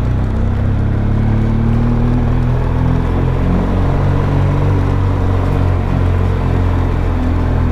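BMW R1200GS boxer-twin engine with a loud exhaust running at low revs, the bike riding slowly, its pitch wavering and rising slightly now and then.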